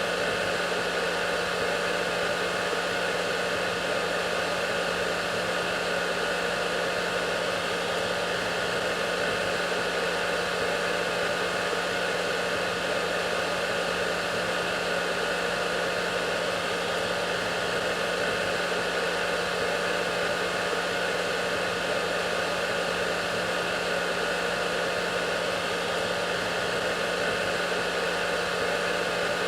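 Hair dryer running steadily: a constant rush of air over an even low motor hum, with no change in speed.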